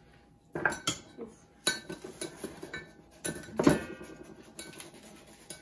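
Kitchen knife knocking on a cutting board as scallions are sliced, with a few metal clinks; several separate sharp knocks, the loudest about three and a half seconds in.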